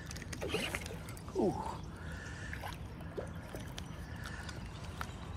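Water gurgling and splashing at the surface where a hooked smallmouth bass is being played on a spinning rod, with small scattered clicks and a short "ooh" about a second and a half in.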